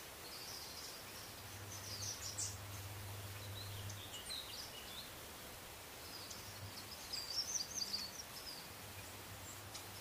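Small birds chirping in short irregular bursts over a steady low hum.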